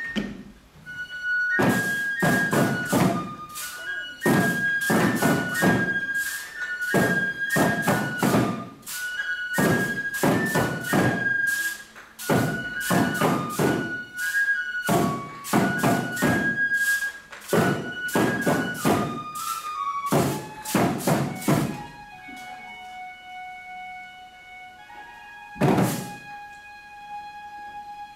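Bamboo transverse flute playing a high, stepping melody while the lion dancers beat the small drums at their chests in quick runs of strikes. About twenty seconds in the drumming stops, leaving the flute on lower notes, with one more drum strike near the end.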